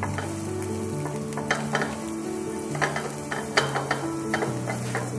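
Minced garlic sizzling in olive oil in a metal frying pan, stirred with a wooden spatula that scrapes and taps irregularly against the pan.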